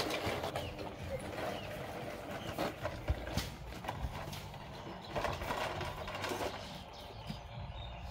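A plastic toy dump truck being handled and pushed over dry dirt: gritty scraping in two stretches, one at the start and one about five seconds in, with a few sharp plastic clicks and knocks about three seconds in.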